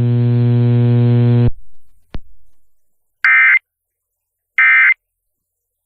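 A steady electrical hum on the broadcast audio cuts off about one and a half seconds in, followed by a single click. Then come the Emergency Alert System's end-of-message data bursts: short, raspy, identical tone bursts about a second apart, two of them, with a third starting at the very end. They mark the close of the alert.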